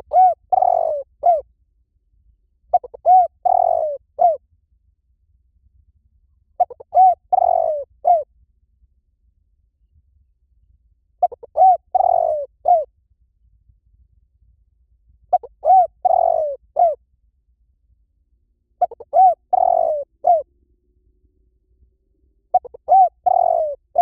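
Spotted dove cooing: a short phrase of a few coos, repeated about every four seconds, seven times.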